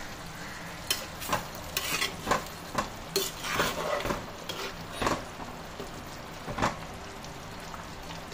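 A spoon stirring chicken gravy in a pan on the stove, scraping and knocking against the pan in about a dozen irregular strokes over a steady low sizzle.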